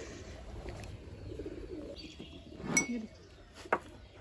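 A steel pestle clinks once against a steel mortar holding jujubes, a short metallic ring about two-thirds of the way through, followed by a softer tap; faint bird calls sit in the background.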